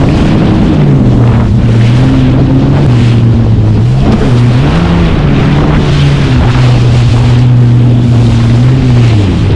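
Yamaha SHO jet ski engine running at speed across open water, its note dipping and rising slightly as the hull rides the swell, with wind buffeting the microphone and water rushing.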